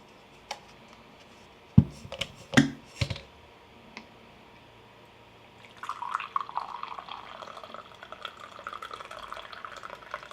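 A few sharp knocks and clatters, then water running or pouring into a container from about six seconds in, steady and fluttering.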